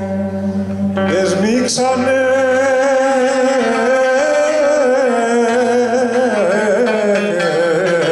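Male voice singing a Greek folk song over instrumental accompaniment. About a second in, the voice glides upward into a long, ornamented held line with wavering pitch.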